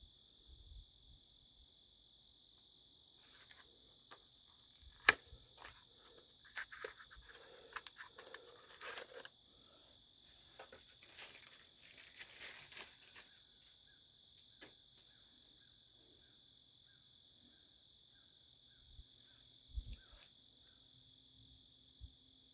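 Faint scattered clicks and small rattles of tools and metal parts being handled at a 1957 Ford F100's inside door handle, with one sharp click about five seconds in, over a steady high chirring of crickets.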